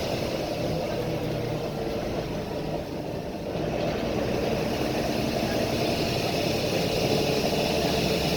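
Volvo B9TL double-decker bus's six-cylinder diesel engine running, heard from inside the passenger saloon as a steady hum with a background hiss, easing slightly about three seconds in before returning.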